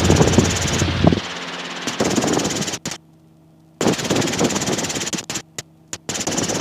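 Robinson R22 helicopter engine and rotor noise in the cockpit, cutting out abruptly twice for about a second and coming back, as through an intercom microphone gate, with a few short clicks.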